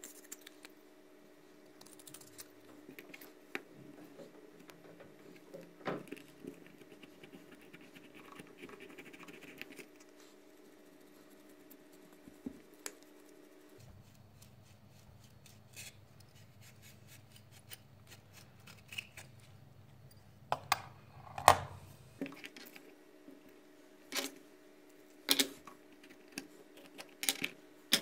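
Wooden ice-cream sticks handled on a tabletop: light scratching of a thin brush drawn along a stick's edge, then scattered sharp taps and clicks of sticks being set down or pressed together in the last third, over a steady low hum.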